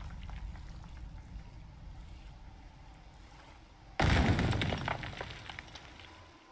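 Sound effects of a collapsed stone building's rubble: a low rumble dies away, then about four seconds in a sudden loud crash of breaking stone trails off into scattered clattering debris.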